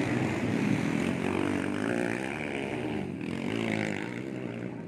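Dirt bike engine revving up and down as the motorcycle passes, growing fainter as it moves away.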